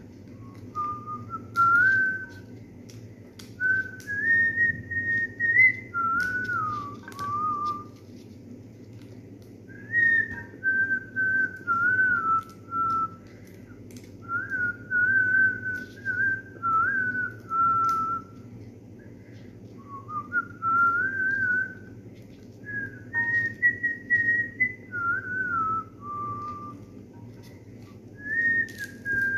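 A person whistling a tune, a single clear melody moving up and down in short phrases with brief pauses between them.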